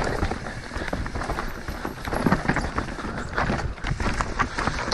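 Mountain bike descending a rocky trail: tyres rolling over rock and dirt, with many quick knocks and rattles from the bike, over a steady wind rumble on the microphone.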